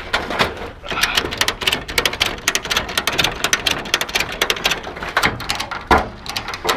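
Rapid, irregular clicking and rattling, many sharp ticks close together, easing off briefly around five seconds in and then picking up again.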